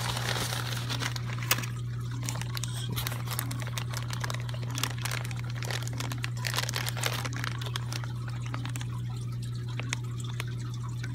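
Plastic bags of water crinkling and the water in them sloshing as bagged coral frags are handled and lifted out of a styrofoam shipping box, with scattered small clicks and crackles. A steady low hum runs underneath.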